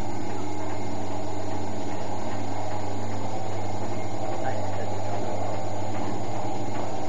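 A century-old shop coffee grinder running steadily, whirring like a sewing machine, with an even mechanical hum.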